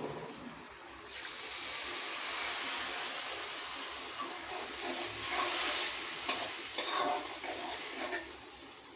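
Water poured into a hot pan of curry, sizzling and hissing as it hits the hot oil. The hiss starts about a second in and eases off, then swells again. A few sharp clicks of a metal spatula against the pan come near the end as the curry is stirred.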